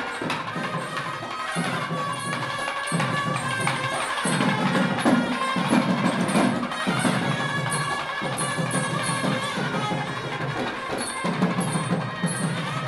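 Traditional music with percussion, playing steadily, with sustained pitched tones over low parts that stop and restart every second or two.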